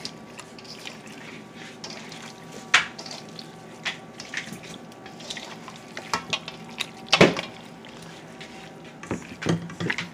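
Hands working seasoning into raw chicken wings and drumsticks in a wet bowl: soft wet handling sounds and small clicks, with louder knocks against the bowl about 3 seconds and 7 seconds in. A faint steady hum lies underneath.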